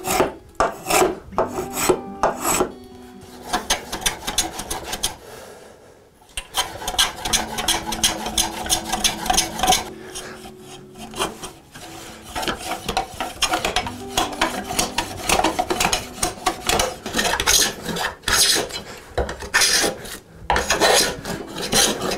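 Spokeshave cutting along the edge of a curved wooden blank in quick repeated strokes, shearing off curled shavings, with a short pause about five seconds in.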